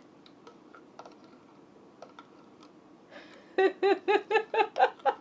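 A few faint clicks of a spoon against a glass as a thick smoothie layer is spooned in, then a person laughing in a quick run of short pulses from about three and a half seconds in.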